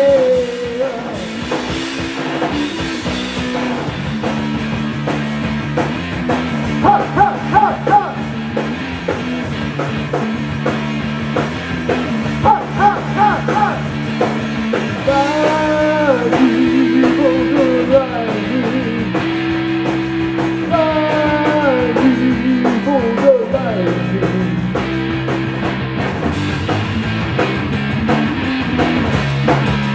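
Rock music without words: band instruments and drums under held chords, with a higher lead melody that slides and bends between notes.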